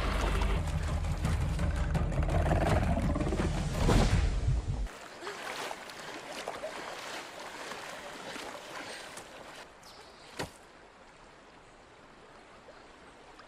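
Rushing river water with splashing. A loud, deep rumble fills the first five seconds and cuts off suddenly, leaving a quieter wash of water that fades, with one sharp click near the end.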